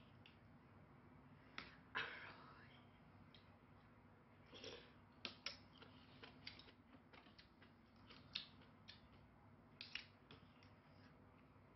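Metal spoon and fork clicking and scraping against a plate as a steamed fish is picked apart: quiet, irregular short clicks, with a louder scrape about two seconds in.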